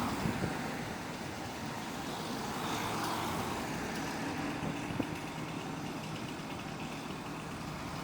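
Road traffic passing, with one vehicle swelling and fading about three seconds in.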